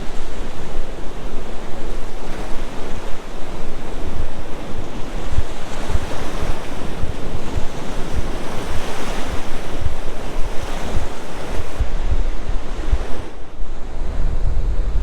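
Ocean surf washing onto a beach, with wind buffeting the microphone in low rumbling gusts. The hiss of the surf swells up through the middle as a wave breaks and runs in.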